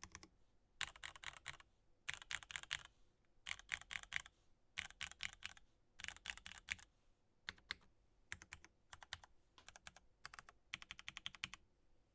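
Typing on a custom mechanical keyboard with unlubed Cherry MX2A Black linear switches, a carbon fibre plate, a polycarbonate case and GMK keycaps. Quick runs of keystrokes come in short bursts with brief pauses, and some scattered single presses fall in the middle.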